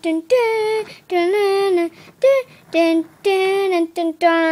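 A child singing a tune in about six held notes, with short breaks between them.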